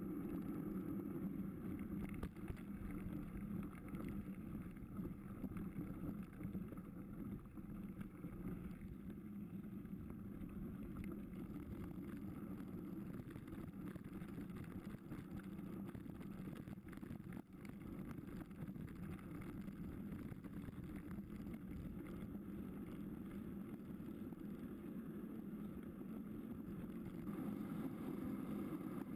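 Steady, muffled rolling rumble of a mountain bike being ridden over gravel and dirt roads, with wind on the bike-mounted camera's microphone.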